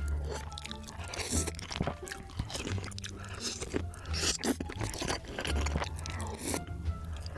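Crunchy food being bitten and chewed close to the microphone, many sharp crunches in quick succession, over background music with a steady bass line.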